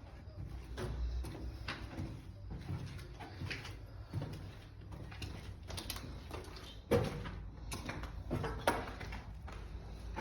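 Irregular footsteps and scuffs on a debris-strewn concrete floor, with two sharper knocks about seven and nine seconds in.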